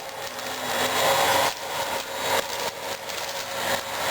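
Hoover Flair vacuum cleaner being worked over shredded paper on carpet: an irregular scraping and rustling that swells and fades with each pass, with the motor's airflow sound held low.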